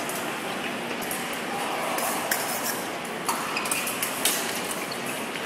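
Épée blades clinking together in several sharp, short metallic clicks, starting about two seconds in, over the steady crowd din of a large fencing hall.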